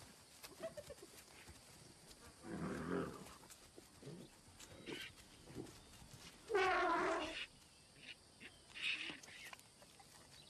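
Scattered wild animal calls: a rough, growling call about a quarter of the way in, then the loudest sound, a pitched elephant call lasting under a second about two-thirds through, with short higher squawks after it.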